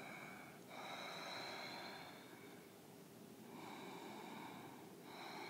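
Faint, slow yoga breathing through a narrowed throat, the audible ujjayi breath of Ashtanga practice. Two long breaths of about a second and a half each, with a third beginning at the end.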